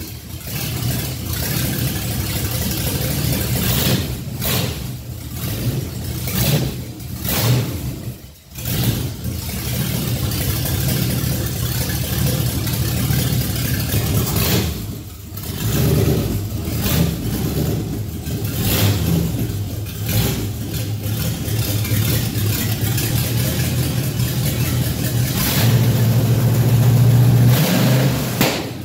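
Freshly rebuilt Mercury 305 marine small-block Chevy V8 running on a test stand during its first start-up and tune. Its speed rises and falls several times as the carburetor throttle is worked by hand, with short dips along the way and a steadier, stronger run near the end.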